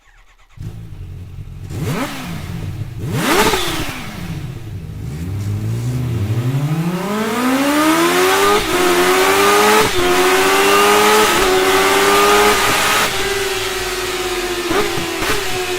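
Kawasaki Ninja H2's supercharged inline-four engine revving in a few quick blips, then pulling up in pitch in one long rise. The pitch holds high with a few brief dips, then eases slightly lower near the end.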